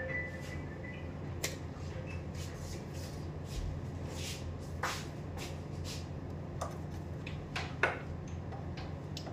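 Light taps and clicks and a few soft scrapes from cake-decorating tools being handled, over a steady low hum.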